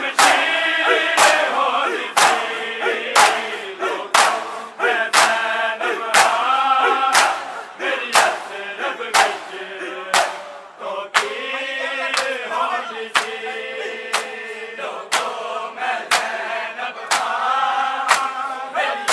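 A crowd of men chanting a mourning lament in unison while beating their chests in matam, the massed hand-on-chest slaps landing together about once a second.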